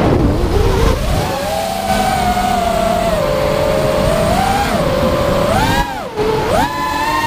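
Whine of a 5-inch FPV quadcopter's four Rotorgeeks 2204 2300kv brushless motors and HQ 5040 tri-blade props, rising and falling with the throttle: it climbs about a second in, holds, sags, then drops sharply and surges back up near the end. Wind rushes over the onboard camera's microphone beneath it.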